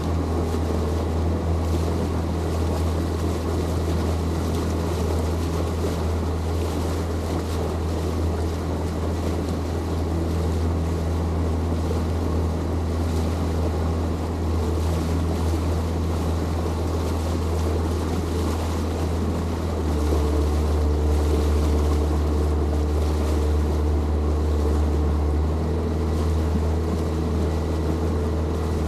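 Motorboat engine running steadily under way, with wind and water noise over it; the engine grows a little louder about twenty seconds in.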